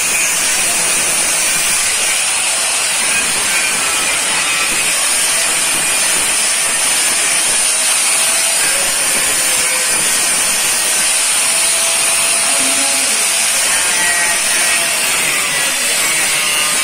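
Handheld electric angle grinder running steadily, its disc grinding the surface of a painted steel bar: a continuous high-pitched whine over a harsh grinding hiss.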